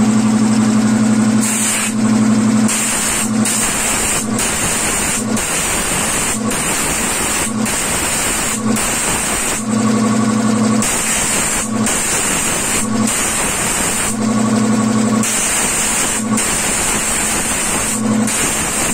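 Compressed air hissing from a blow gun in repeated short blasts, roughly one a second, over the steady hum of a running belt-driven piston air compressor. The air is blowing water out of a freshly washed audio mixer's knobs and channel strips to dry it.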